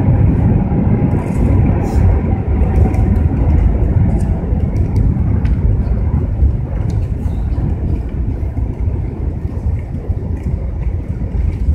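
Cabin noise of an Airbus A380-800 rolling out after landing: a dense low rumble of engines and wheels that slowly eases as the aircraft slows, with a faint whine fading out in the first few seconds and light rattling clicks.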